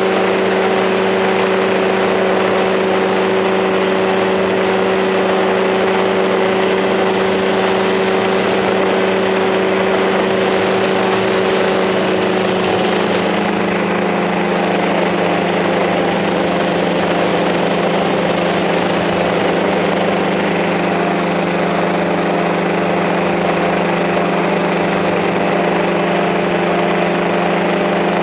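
Small multirotor drone's electric motors and propellers running in flight: a steady, loud hum of several pitches at once that shifts slightly about halfway through as the motors change speed.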